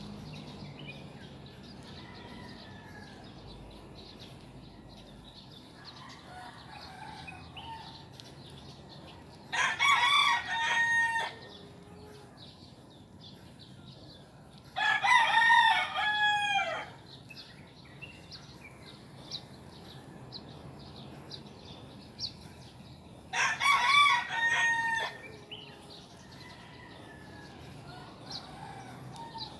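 A rooster crowing three times, each crow a pitched, drawn-out call of about two seconds.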